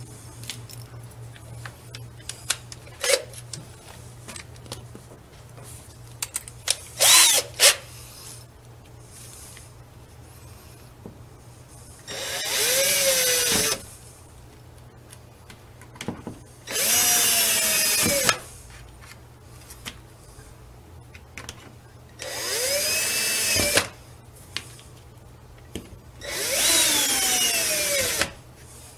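Cordless drill with a Phillips bit driving screws up through the net's edge into a plastic golf cart roof. It runs in four bursts of about a second and a half each, the motor's pitch rising and then falling away as the trigger is let go. Before them come a short burst and light handling clicks.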